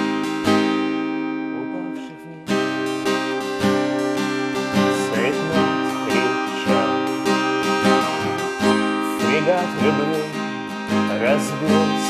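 Acoustic guitar strummed in chords, with a brief break about two seconds in before the strumming picks up again, steady and rhythmic. About halfway through, a voice comes in singing over the guitar.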